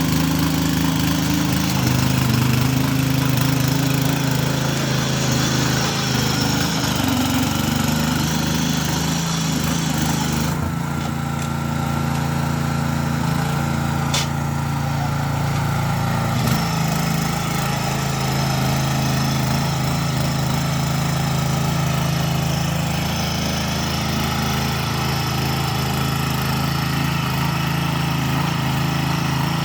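Engine of a walk-behind motor tiller (patpat) running steadily. The upper part of its note thins for several seconds in the middle, and there is one sharp click about 14 seconds in.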